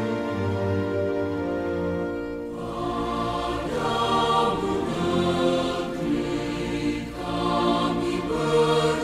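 Background music of slow, long-held chords, with choir-like singing voices.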